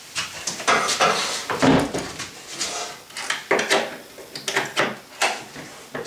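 Irregular knocks and rustles of handling: a corded drill and its cable being moved about and set down on a wooden worktable, and the drill's plug being fitted into the power socket on the vacuum cleaner's head. The vacuum is not running.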